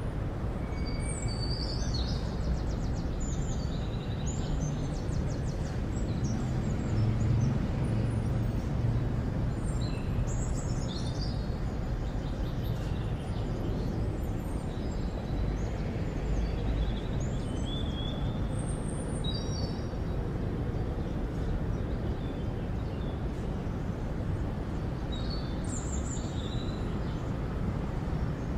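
Outdoor town ambience: a steady low rumble of distant traffic, with small birds chirping briefly every several seconds.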